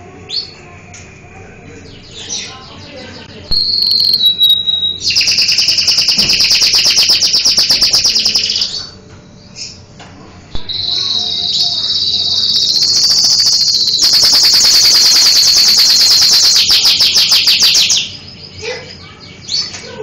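Caged canary singing: loud song of rapid rolling trills and held whistled notes, in two long bouts starting about three and a half seconds in, with a short pause between them.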